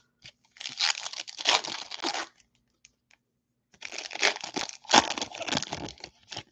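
Foil wrapper of a Bowman baseball card pack crinkling and tearing open by hand, in two bursts of crackling with a short pause between them.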